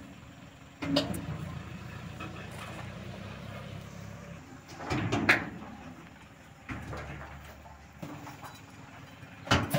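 A few sharp knocks and clatters of hand tools and a plastic basket being handled, the loudest near the end, over a faint low rumble.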